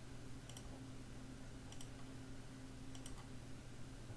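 Computer mouse button clicking faintly three times, about once every 1.2 seconds, each a quick press-and-release double tick, as edges are selected one by one, over a steady low electrical hum.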